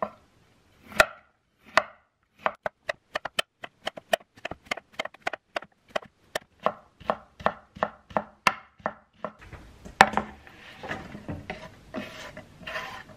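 Chef's knife cutting a round zucchini on a wooden cutting board: a couple of slow cuts, then a steady run of chops at about three a second. Near the end a single sharp knock comes, followed by softer scraping and handling sounds as the cut strips are gathered.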